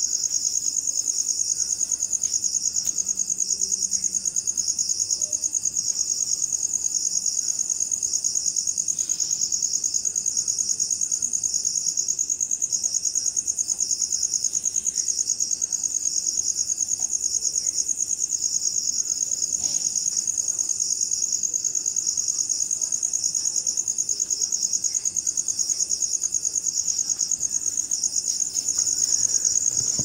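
Night insect chorus: a dense, rapidly pulsing high-pitched trill that holds steady, with a fainter steady high tone from other insects beneath it.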